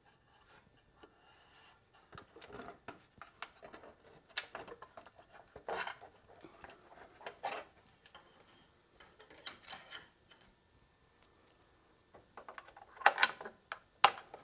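Scattered clicks, knocks and rattles of a fluorescent shop-light fixture being unfastened and handled overhead, with the loudest clatter near the end as it comes down from the ceiling.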